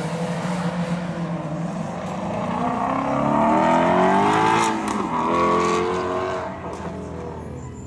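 Mini Cooper's four-cylinder engine revving hard as the car is driven quickly through an autocross cone course: the pitch climbs, drops briefly about halfway, climbs again, then fades as the car moves away. A few short clacks sound around the middle.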